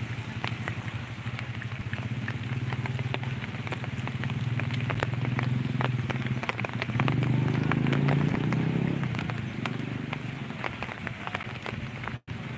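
Raindrops ticking close by, many small sharp taps all the way through, over a steady low rumble that swells for a couple of seconds about seven seconds in.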